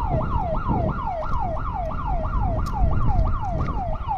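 Electronic 150 dB security alarm siren sounding a fast repeating wail, each note falling in pitch, about five a second. It has been set off by the security system's motion detection when someone crosses the property line.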